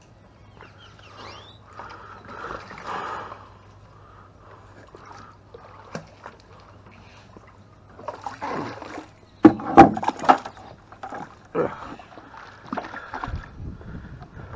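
A plastic bucket on a rope being dipped into harbour water and filled: soft splashing and gurgling, then loud knocks and sloshing about two-thirds of the way through as the full bucket is hauled up onto the wooden dock.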